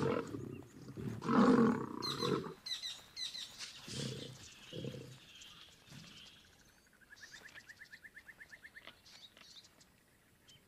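Male lions fighting, with loud snarling growls in the first two seconds and a couple of shorter growls around four and five seconds. Later a high rapid trill pulses about eight times a second for roughly two seconds.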